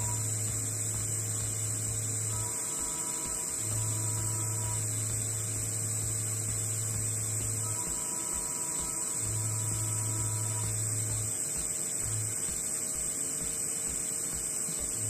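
TIG welding arc burning steadily on thick steel plate: a constant electrical hum with a steady high whine, and a low buzz that drops out and returns every few seconds.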